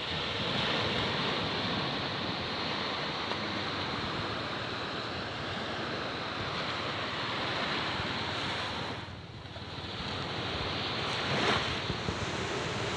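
Small surf breaking and washing up onto a sandy beach: a steady rushing wash of waves that eases briefly about three-quarters of the way through, then swells again.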